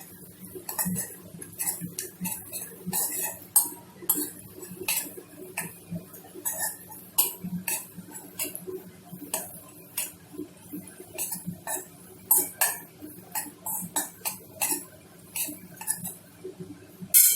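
A spatula knocking and scraping irregularly against a kadai while stirring a tempering of cumin, dried red chillies and garlic frying in ghee and oil.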